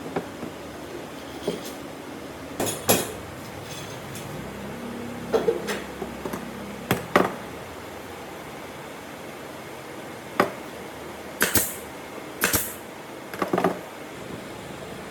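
Workshop handling sounds: scattered wooden knocks and clicks, then three short scraping strokes near the end, over a steady background hiss.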